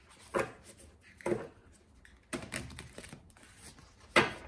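A tarot deck being handled: a few sharp card clicks and taps at irregular intervals, the loudest one near the end.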